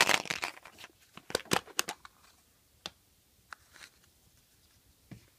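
Hollow plastic capsule egg being pulled open by hand and a small plastic letter taken out: a quick cluster of plastic clicks and scrapes, more clicks a second later, then a few single sharp clicks.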